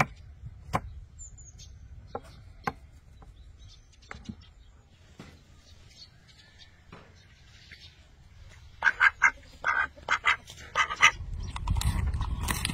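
A duck quacking several times in quick succession, about nine to eleven seconds in, after a few scattered light knocks.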